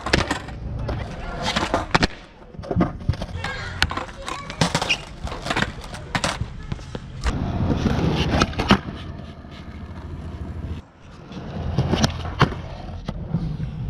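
Skateboard being ridden and popped into flip tricks: several sharp clacks of the tail snapping and the board and wheels slapping down, with a stretch of wheels rolling over the rough court surface in the middle.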